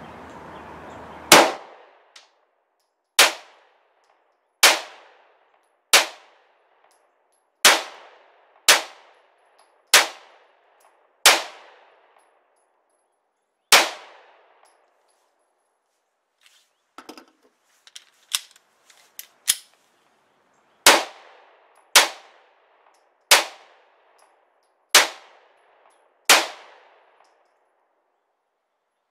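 Smith & Wesson Shield 9mm pistol fired in slow, deliberate single shots: nine sharp cracks one to two and a half seconds apart, each with a short decaying tail. A pause follows with a few quieter metallic clicks, then five more shots.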